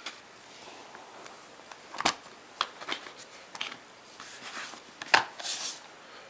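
Blu-ray case and packaging being handled: a series of sharp plastic clicks and taps, the loudest about two seconds in and about five seconds in, with brief rustling between.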